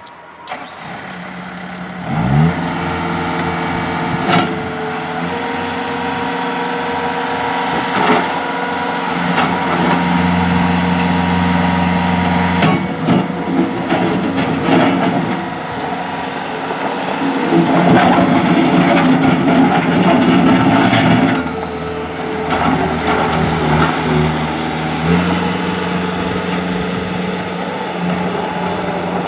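Bobcat S205 skid steer's diesel engine climbing in pitch up to speed about two seconds in, then running, its speed rising and falling as the machine works, with a few sharp metallic knocks.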